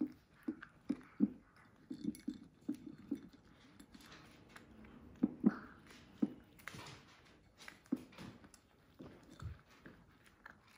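Miniature dachshund puppy crunching dry kibble from a ceramic bowl: irregular crunches, two or three a second, with a louder cluster about five and a half seconds in.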